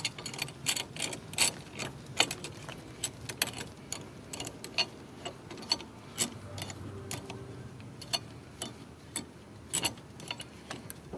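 Irregular metallic clicks and clinks, two or three a second, as a C-clamp's sliding T-handle is wound round against the brake hardware.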